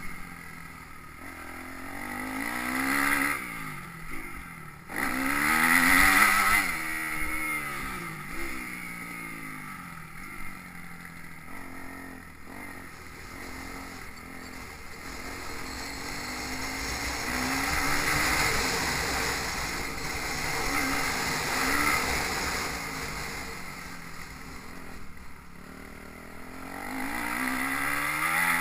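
Motocross bikes revving hard through the gears, engine pitch repeatedly climbing and dropping as they accelerate and pass, loudest about six seconds in and again near the end, over a low rumble of wind on the microphone.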